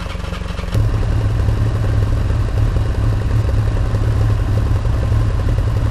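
Motorcycle engines idling at a standstill. About a second in, the engine note steps up louder and steadier and holds.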